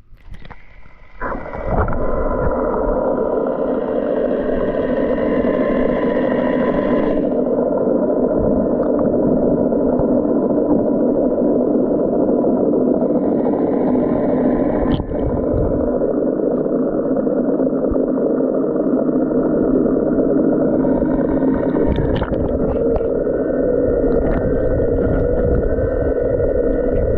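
Dolphin Nautilus CC Plus robotic pool cleaner's motor and pump humming steadily as it runs through the pool, heard with the microphone underwater. The hum starts about a second and a half in and shifts slightly in tone a few times.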